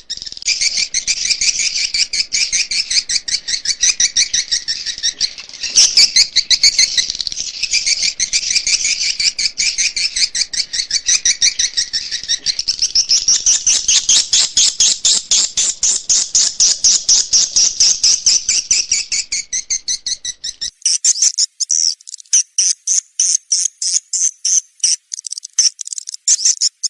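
Recorded swiftlet call sound: edible-nest swiftlets twittering in a rapid, continuous stream of chirps, the kind of lure track played to draw swiftlets into a swiftlet house. About 21 seconds in it changes to a sharper, evenly pulsed chirping with the low background gone.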